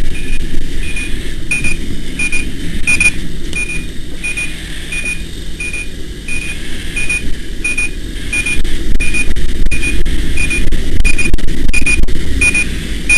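An electronic alarm beeping in a quick, even rhythm of about three high beeps a second, over a steady low rumble.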